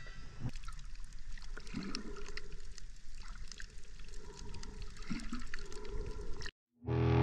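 Underwater sound picked up by a submerged camera: muffled water with many scattered sharp clicks and crackles and two brief low tones. About six and a half seconds in it cuts out and music begins.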